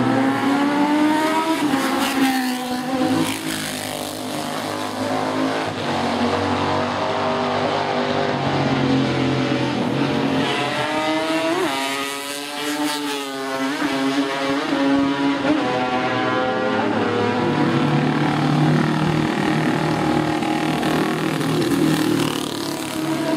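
Classic racing motorcycles passing in turn, engines loud throughout, their pitch falling and then rising again as each bike slows and accelerates away. The engine notes of several bikes overlap in the middle.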